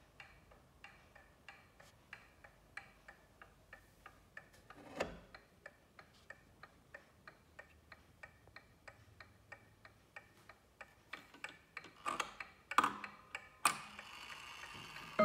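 Junghans mechanical mantel clock movement ticking with a steady tick-tock. There is a thump about five seconds in. Near the end, knocks and rubbing come from the hands being pushed round to the hour.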